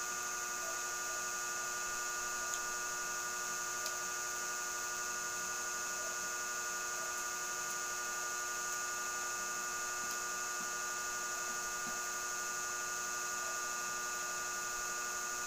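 Steady electrical hum made of several fixed tones over a high hiss, with a couple of tiny faint clicks about two and a half and four seconds in.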